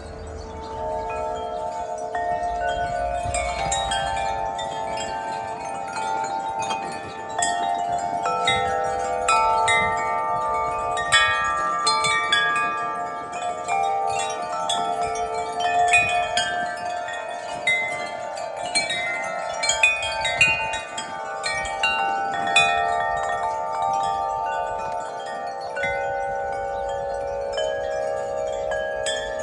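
Wind chimes ringing in gusting wind, their tubes struck again and again so that many ringing notes overlap; the ringing picks up about a second in and is busiest through the middle, with scattered louder strikes.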